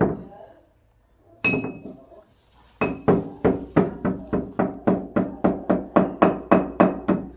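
Two separate sharp knocks, then from about three seconds in a steady run of hard, hammer-like knocks, about three or four a second, each with a brief ringing.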